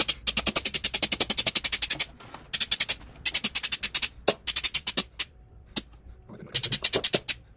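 An aerosol spray can being shaken, its mixing ball rattling in quick runs of sharp clicks, about a dozen a second, that stop and start again, busiest in the first two seconds and again near the end.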